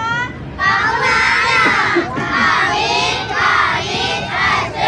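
A group of children shouting a chant together in unison, in short loud phrases about a second apart.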